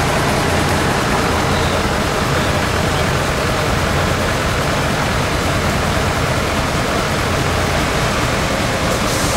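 Off-road race trucks' engines running together in the mud, an even, unbroken wash of noise with a low hum underneath.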